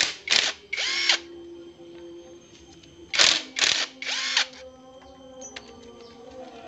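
Cordless driver spinning a socket on the engine side-cover bolts of a Yamaha Vega ZR motorcycle. It runs in two groups of three short bursts, the first at the start and the second about three seconds in. The last burst of each group is longer and the motor pitch swings as it spins up and down.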